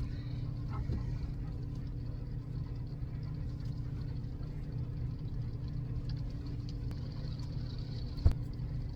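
A steady low mechanical hum with a faint high hiss over it, and one sharp click or knock about eight seconds in.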